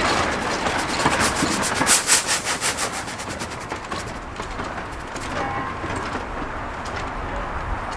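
Steam locomotive working slowly: a fast run of sharp steam beats, loudest about two seconds in and dying away by about four seconds, then a steadier hiss and running noise.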